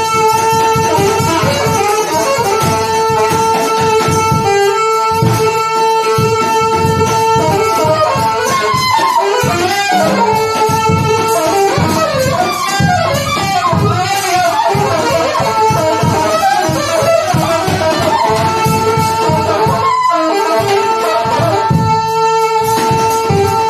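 Live saxophone and drum kit duo improvising. The saxophone holds a long high note for the first few seconds, breaks into fast runs of notes through the middle, and returns to long held notes near the end, over busy, continuous drumming.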